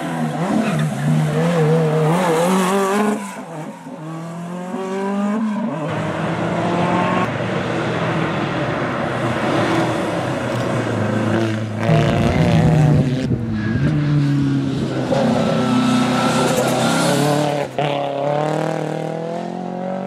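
Historic rally cars taken hard through bends one after another, first a Renault 5 and later an Opel Kadett. Their engines rev up and fall back again and again as they change gear and lift off for the corners.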